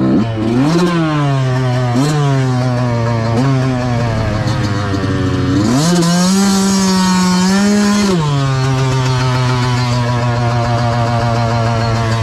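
Yamaha YZ125 two-stroke dirt bike engine blipped a few times as the bike rolls to a stop, then idling. A few seconds in, the revs rise and hold for about two seconds before dropping back to a steady idle.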